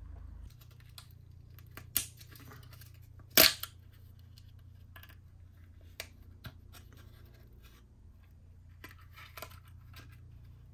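Thin clear plastic blister packs crackling and clicking as the gummies are handled and one is worked out of its blister. Two sharp crackles come about two and three and a half seconds in, the second the loudest, followed by lighter scattered clicks.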